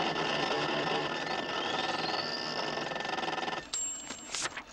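Mainframe computer sound effect: a dense machine whirring with steady electronic hums and a rising whistle, which cuts off suddenly about three and a half seconds in. A brief high electronic tone follows.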